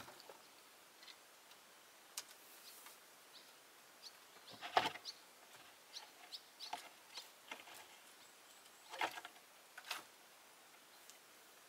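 Kittens' paws and claws scrabbling on loose roof slates and timber beams: faint scattered clicks and scrapes, with louder clatters about five seconds in and again around nine and ten seconds.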